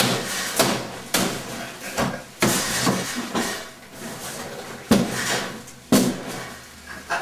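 Hammer blows on a plaster wall: about seven sharp knocks at uneven spacing as the plaster breaks open. The two loudest come about five and six seconds in.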